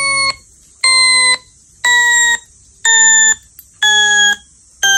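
Electronic beeps played through a smartphone speaker: a TikTok sound clip said to make dogs tilt their heads. About one beep a second, each about half a second long, stepping a little lower in pitch every time.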